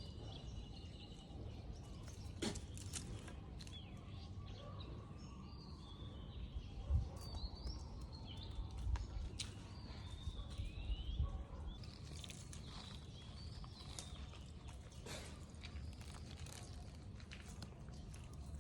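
Outdoor ambience with faint high chirping calls, scattered clicks and a few low bumps of rumble around the middle.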